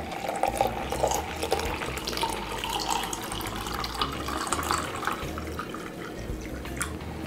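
Water poured in a steady stream from a glass measuring jug into a small glass jar of coffee grounds, filling it for cold brew.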